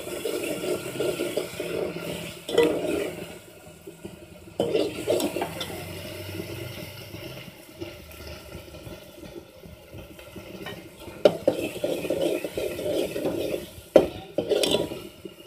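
Steel spoon stirring and scraping a frying masala around a metal pot, in spells with a calmer stretch in the middle, and a couple of sharp taps of the spoon against the pot near the end; the masala sizzles faintly underneath.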